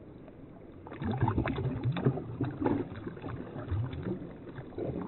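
Creek water sloshing and splashing around a hand in the shallows as a trout is let go, getting louder and more irregular about a second in.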